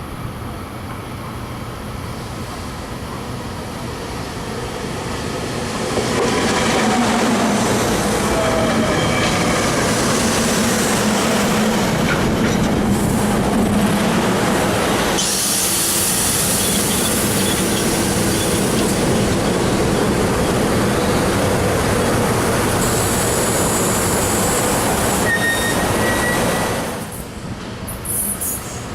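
A train running past on the tracks: the rumble swells about six seconds in and holds loud and steady for about twenty seconds, with wheels squealing briefly on the rails, then drops away suddenly near the end.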